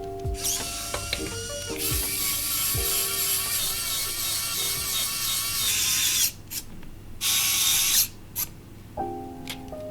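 Mechanical ratcheting whir, as of a screwdriver driving screws into a keyboard case: a long run of several seconds, then a second short run.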